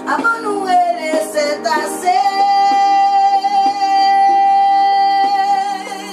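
A girl singing with instrumental accompaniment: a phrase that slides down in pitch, then one long held note from about two seconds in until near the end.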